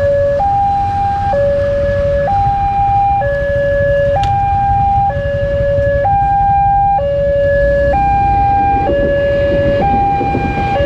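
Railway level-crossing warning alarm sounding its two-tone signal, a low note and a higher note alternating about once a second, over the low rumble of waiting motorcycle engines. The rumble grows near the end as a commuter electric train arrives at the crossing.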